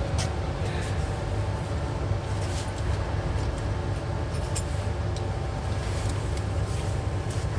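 Steady low engine rumble, like a large diesel idling, with a few light clicks and taps of metal parts being handled.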